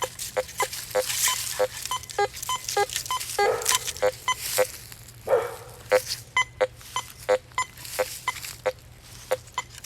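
Teknetics Patriot metal detector sounding short, clipped tone beeps, about two to three a second, as the coil sweeps over a silver dime buried eight inches deep. Two brief brushing swishes come about a third and halfway through.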